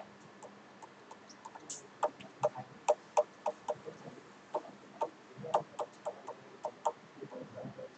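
Pen stylus tapping and clicking on an interactive display board while a diagram is drawn and labelled: a run of short, irregular ticks, thickest from about two seconds in to about six seconds in.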